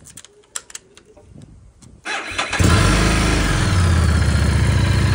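A few sharp clicks, then about two seconds in a starter cranks briefly and the engine catches, settling into a steady idle.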